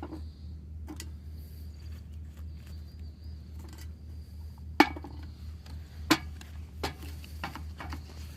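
Scattered light clinks and knocks of leftover charcoal pieces being handled and dropped into a metal tin, two of them sharper about five and six seconds in, over a steady low hum.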